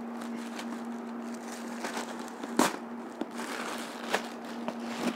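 Plastic courier mailer bag rustling and crinkling as a cardboard shoebox is pulled out of it, with scattered sharp crackles, the loudest about two and a half seconds in. A steady low hum runs underneath.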